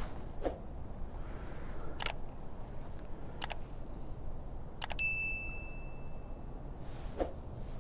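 Low wind rumble on the microphone, with four sharp clicks from fishing gear being handled, a second or so apart, and a short ringing ding about five seconds in that fades over about a second and a half.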